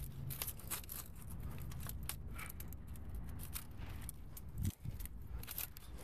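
Leafy tree branches rustling and twigs crackling as a person climbs and grips limbs, a scatter of irregular sharp clicks and snaps with no steady saw rhythm.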